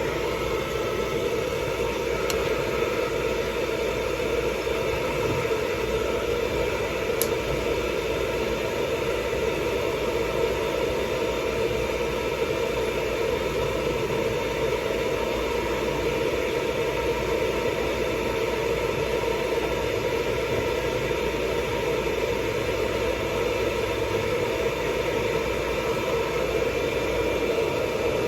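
Hair dryer running steadily, a constant rush of air with a steady motor whine over it.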